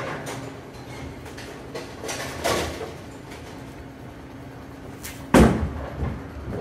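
Pinsetter machinery clattering and knocking as it sets a full rack of pins, over a steady machine hum. About five seconds in, a Storm Pitch Black urethane bowling ball is released and lands on the lane with a single loud thud, then rolls away.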